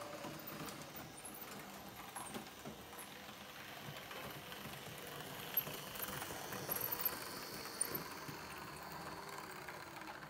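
Märklin H0 VT 95 railbus model running on its track, motor humming with its wheels rattling and clicking over the rail joints and points. It grows louder as it passes, with the sharpest clicks about six to eight seconds in.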